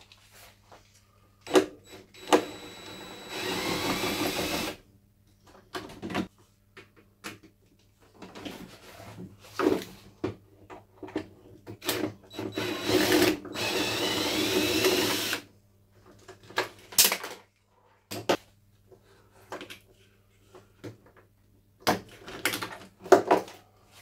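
A washing machine's plastic drum sensor being unscrewed with a stubby screwdriver and worked loose by hand: a string of sharp clicks and knocks, with two longer spells of harsh noise, about three seconds in and again around the middle, each lasting a couple of seconds.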